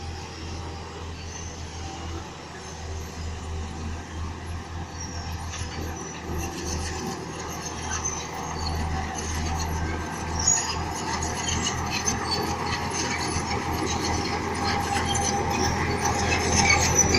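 Crawler earthmoving machine at work: its diesel engine runs steadily while its steel tracks rattle, getting louder toward the end.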